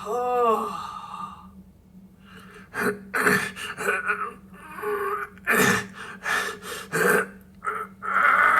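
A person crying: a wavering, moaning wail in the first second or so, then after a short pause a run of sharp, gasping sobbing breaths.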